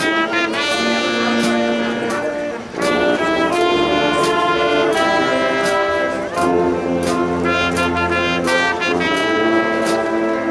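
Marching band playing, with brass carrying sustained chords over regular drum and cymbal hits.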